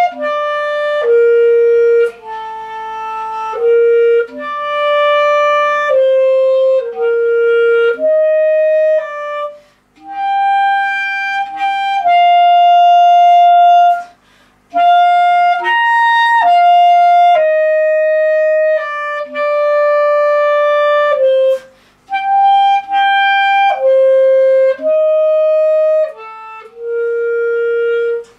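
Solo clarinet playing a slow melody of long held notes, one note at a time, broken by a few short pauses for breath.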